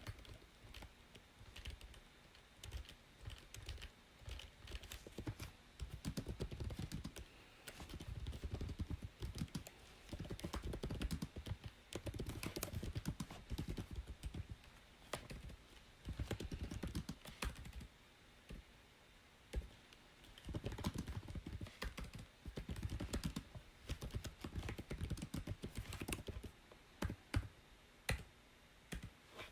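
Typing on a computer keyboard: quick runs of key clicks in bursts of a few seconds, broken by short pauses.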